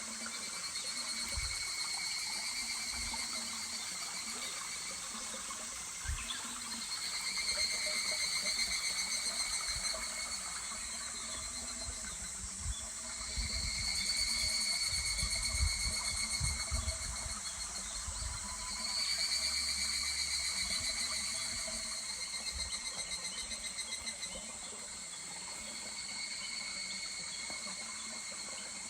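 Higurashi (evening cicadas) calling in repeated pulsing phrases, each a few seconds long and returning every five or six seconds, over the steady trickle of a stream.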